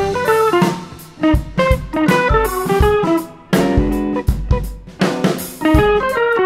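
Background music: a quick melody of short picked notes over a drum beat.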